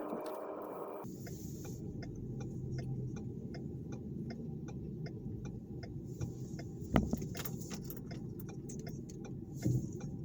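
Car engine running with a low rumble heard from inside the car, while the turn-signal indicator ticks at an even pace; a single knock about seven seconds in and another near the end.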